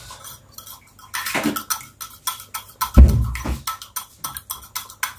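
Wire whisk beating raw eggs by hand in a plastic bowl: rapid clicking and tapping of the wires against the bowl, with a dull thump about three seconds in.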